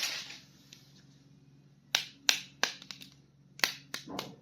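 Handling of a plastic toy action figure: a brief rustle, then a run of sharp clicks and taps in the second half.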